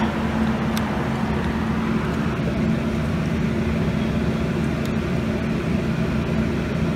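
A steady mechanical hum with a constant low drone, unchanging throughout.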